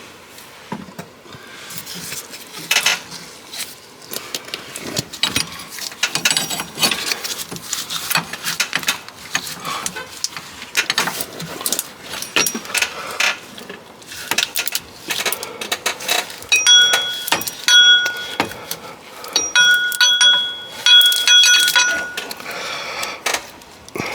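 A metal hose pick tool scraping and clicking as it is worked around rubber coolant hoses to break them loose from their fittings. From about two-thirds of the way in, it strikes metal with repeated bright, ringing clinks.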